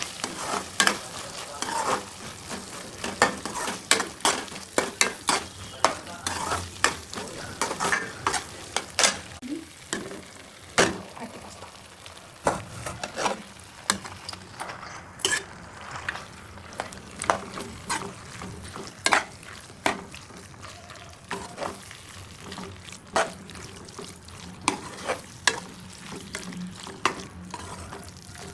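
Millet pasta sizzling in a frying pan while being stirred, with a steady hiss and frequent sharp clicks and scrapes of the stirring utensil against the pan.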